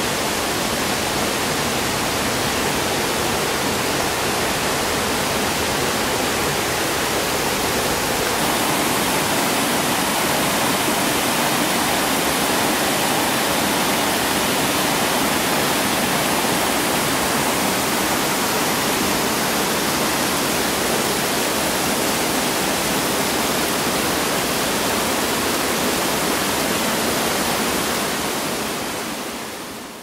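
Waterfall in a mountain gorge, a steady rush of falling water that fades out near the end.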